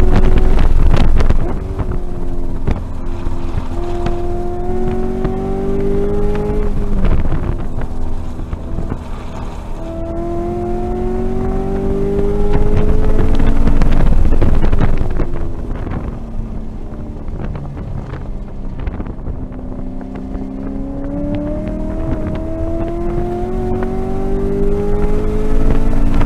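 2018 Camaro SS 1LE's 6.2-litre V8 heard from inside the cabin, pulling hard at high revs and climbing in pitch three times, with drops in loudness where the driver lifts off the throttle about a second and a half in and again about fifteen seconds in.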